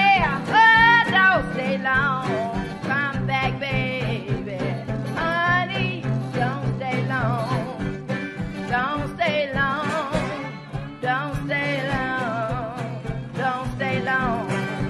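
Music: an upbeat country-style song in an instrumental passage, a bending lead melody over a steady rhythm.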